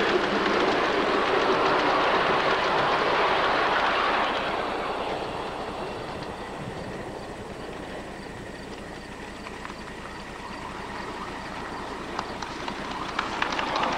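Ride-on miniature railway train running on its track: a loud steady rush of wheels on rail that fades after about four seconds. Near the end another small train comes closer, its wheels clicking over the rail joints and growing louder.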